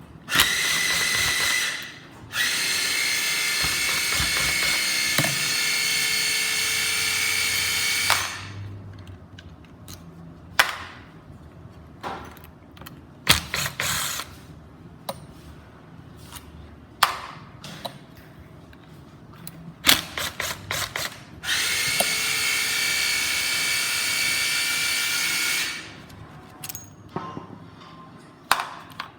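Makita GA027G 40V cordless angle grinder running with no load, a steady high motor whine, in three runs: a brief burst at the start, a long run of about six seconds, and another of about four seconds later on. Sharp clicks and knocks from handling the tool fall between the runs.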